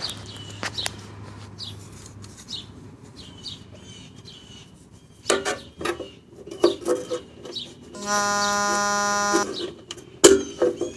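Clicks and scrapes of small parts being handled, with birds chirping. Near the end a single steady buzzing tone sounds for about a second and a half.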